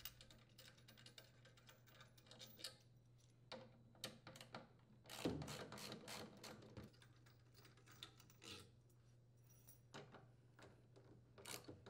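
Faint socket-wrench ratchet clicking as a 10 mm socket backs out the washer stator's mounting bolts: scattered short runs of clicks, with a louder stretch of clicking about five seconds in lasting over a second.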